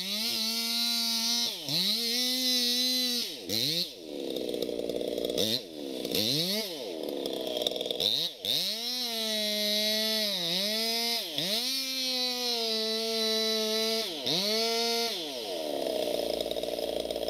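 Chainsaw cutting into the base of a large tree trunk: the engine runs at high revs, its pitch sagging each time the bar bites into the wood and climbing again as the load eases. Several times the throttle is let off and opened back up, giving quick falls and rises in pitch.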